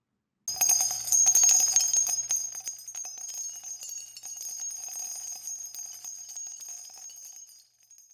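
Small high-pitched bells shimmering as a sound effect: a burst of many quick little strikes about half a second in, then ringing on and fading away over about seven seconds.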